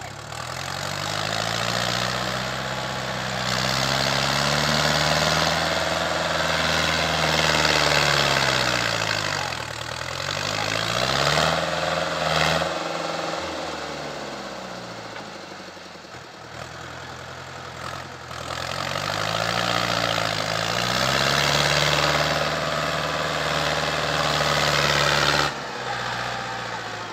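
Log-loaded articulated forestry tractor's engine revving up and held high under load, falling back about ten seconds in and again a few seconds later, then revving up once more before easing off near the end.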